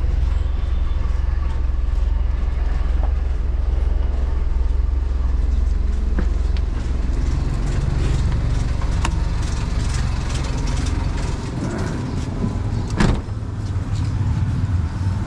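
The motorcycle engine of a motorcycle-and-sidecar tricycle running as it drives along, heard from inside the sidecar, with heavy road and wind rumble. There is one sharp knock near the end.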